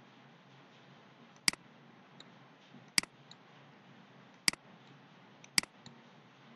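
Computer mouse button clicking: four sharp clicks about a second and a half apart, some followed by a fainter click, over a faint steady hiss.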